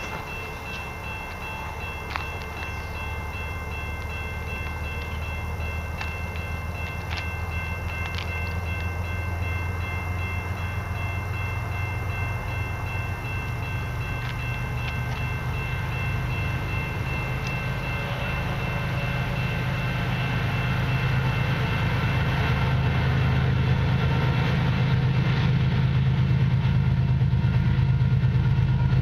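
Diesel freight locomotives approaching: a low engine rumble that grows steadily louder, with a faint steady high-pitched ringing over it and a few faint clicks.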